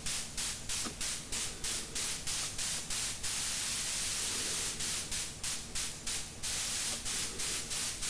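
White noise from a DIY white noise generator module, gated by a VCA and AD envelope into short hiss bursts about four a second, like a hi-hat or snare. The envelope is being adjusted, so about three seconds in the bursts run together into a steady hiss for a couple of seconds before separating into bursts again.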